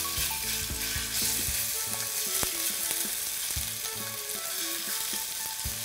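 Raw chicken breast pieces sizzling as they hit hot oil in a stainless-steel skillet on high heat. A steady frying hiss carries on throughout, with a sharp tap of the wooden spatula about two and a half seconds in.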